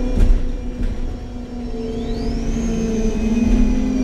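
Articulated MAN Lion's City G CNG city bus heard on board: a steady engine and Voith gearbox hum over a low rumble, with a high whine that rises about two seconds in and then holds.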